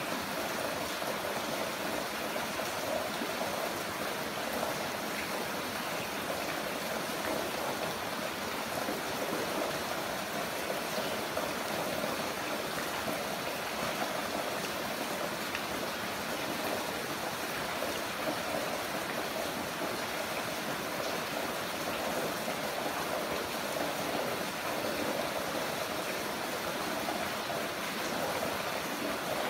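Heavy rain falling steadily, an even rushing hiss with no breaks or separate drops standing out.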